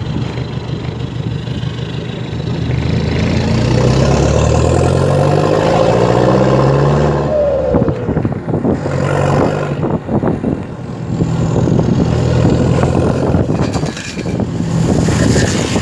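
Toyota Hilux Vigo 3.0 four-cylinder turbodiesel with its exhaust muffler removed, accelerating while driving. The engine note climbs for several seconds, drops abruptly at a gear change about halfway through, then climbs again with another drop near the end.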